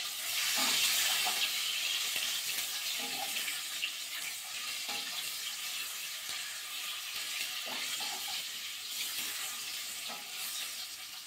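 Whole boiled eggs sizzling in hot mustard oil with turmeric in a kadai, a steady frying hiss. Now and then there are faint scrapes and taps as a flat spatula turns them.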